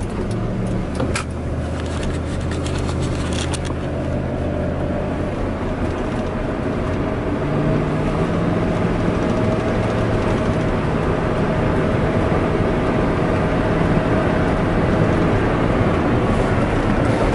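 Dodge Ram 1500's 5.9 Magnum V8 running under way, heard from inside the cab over tyre and road noise, with a few light clicks in the first few seconds. The engine note steps up about seven and a half seconds in and the level slowly rises as the truck picks up speed. It is being driven hard to burn the Seafoam treatment out of the cylinders.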